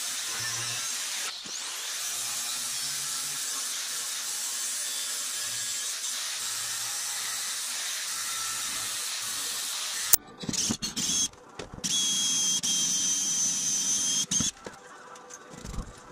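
Angle grinder grinding a steel bracket, a steady hiss of the disc on the metal for about ten seconds. It then cuts off sharply and an electric drill runs in about three short bursts with a high whine, boring a hole through the steel plate.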